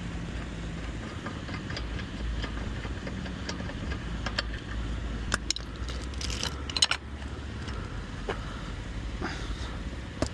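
Scattered metallic clinks and taps from tire-changing work on lug nuts, bunched together about five to seven seconds in, over a steady low vehicle rumble.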